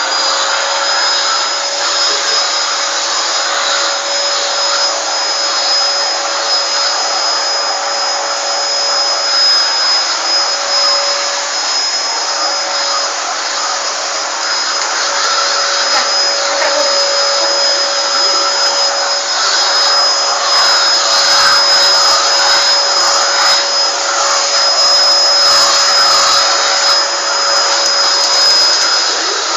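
Vacuum cleaner running steadily with a high motor whine over a rushing air noise, its motor just reaching full speed at the start. Low bumps come now and then in the second half.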